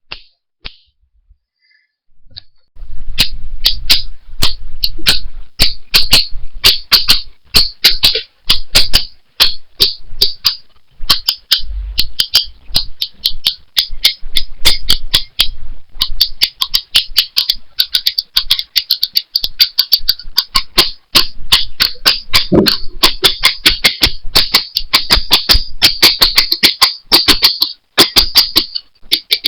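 A rapid, uneven series of sharp clicks over a low hum, starting about three seconds in and keeping up several clicks a second.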